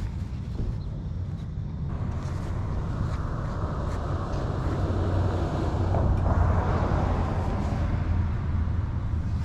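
A car driving past on the street: its tyre and engine noise swells over a few seconds, is loudest about two-thirds of the way in, then fades, over a steady low rumble.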